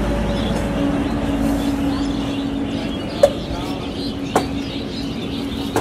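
Roadside traffic noise: a low vehicle rumble that fades in the first second over a steady hum, with two sharp clinks about three and four and a half seconds in, as from utensils against a steel tin.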